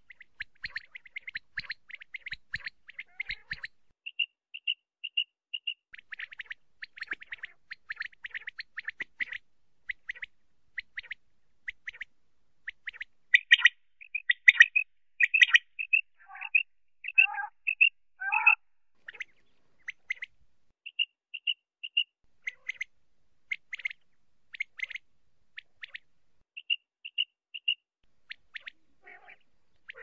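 Common quail calling: short, high, clipped notes, some in quick runs and some in evenly spaced groups of three or four, loudest near the middle.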